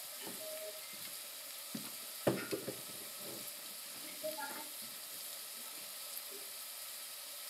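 Diced onion, jalapeño, garlic and ginger sizzling in oil in a stainless steel saucepan: a steady frying hiss, with a few light knocks about two seconds in.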